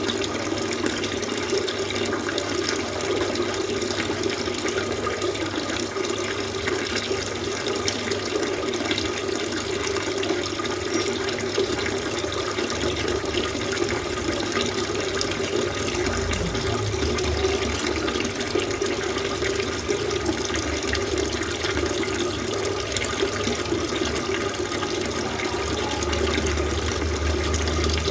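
Water fountain running, a steady splashing stream of water falling into a pool.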